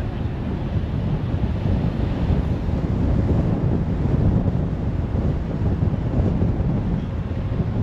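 Steady low rumble of a moving car, with wind buffeting the microphone and road noise.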